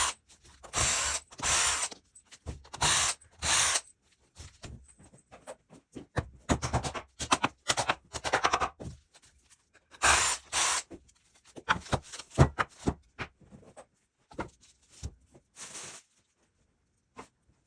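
Woodworking on a board: a series of short, scratchy strokes of work on wood, coming in uneven runs with pauses between them.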